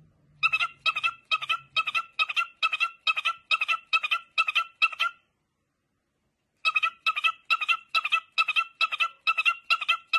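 A cockatiel giving a rapid series of short, identical chirps, about two to three a second, in two runs with a pause of about a second and a half in the middle.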